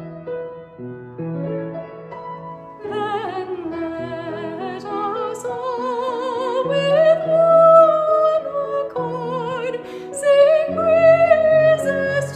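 Piano accompaniment playing chords, joined about three seconds in by a solo singer in a classical, operatic style with strong vibrato, singing a slow melody in a high register.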